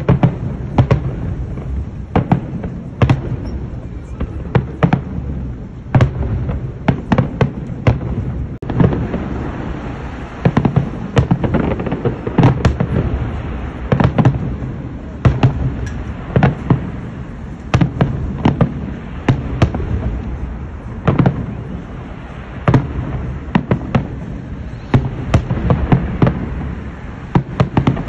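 Aerial fireworks display: a steady run of sharp bangs from bursting shells, at times several in quick succession, over a continuous low rumble.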